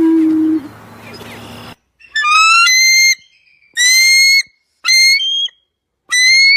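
A bird's loud whistled calls, four of them, each about a second long on a slightly rising note.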